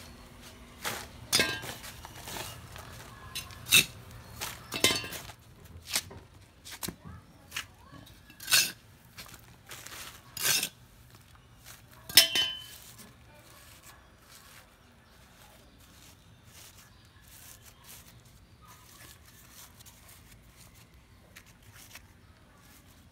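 Small metal hand trowel scooping potting mix, its blade scraping and clinking against the concrete floor and the plastic pot: a string of sharp scrapes over the first dozen seconds. After that only faint rustling is heard as the soil is pressed down by hand.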